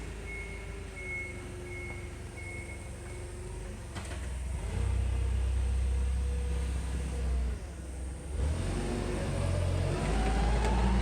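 A motor-driven air pump or compressor running with a steady low hum, pumping air into the tube to pressurise it for a connector leak test. Its pitch shifts partway through and rises steadily near the end. Short high beeps repeat about twice a second during the first three seconds.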